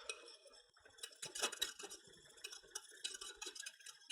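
A utensil stirring toffee sauce in a saucepan: faint, irregular scrapes and light taps against the pan.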